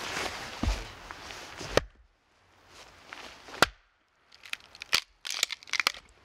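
Split firewood being pulled apart by hand, the fibres tearing in a quick run of sharp cracks and splintering near the end. Before that come a couple of dull thumps and a single sharp crack.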